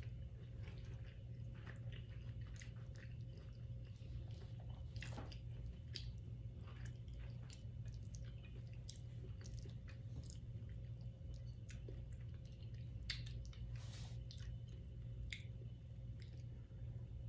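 A person chewing soft food close to the microphone, with wet mouth sounds and scattered small clicks, over a steady low hum.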